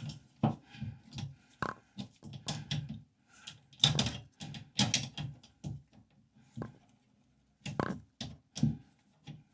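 A metal hand tool clicking and knocking on the coupling nut of a new toilet supply line as it is snugged down onto the angle stop valve: a run of irregular small clicks and taps, with a short pause about seven seconds in.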